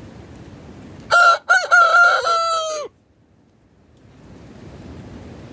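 Rooster crowing once, a loud cock-a-doodle-doo lasting nearly two seconds, starting about a second in and ending on a falling note.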